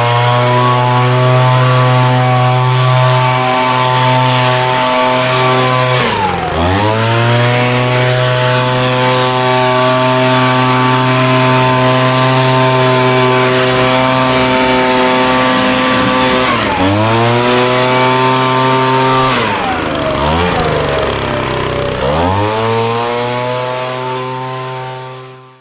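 Petrol pressure washer running with a steady hiss of high-pressure water spray over the engine. The engine speed dips sharply and recovers about three times, and the sound fades out near the end.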